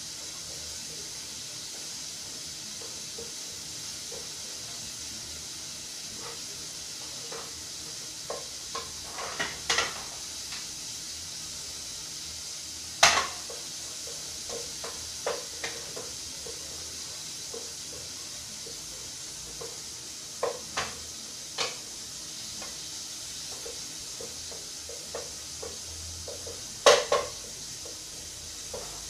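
Wooden spoon stirring flour and oil in a stainless steel pot as a roux slowly cooks toward brown, with irregular scrapes and knocks of the spoon against the pot over a steady faint sizzle; the sharpest knocks come about halfway through and near the end.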